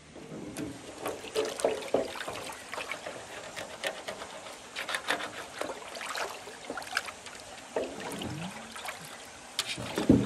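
A hand swishing and splashing water around in a large plastic basin, in uneven sloshes, with the loudest splash near the end.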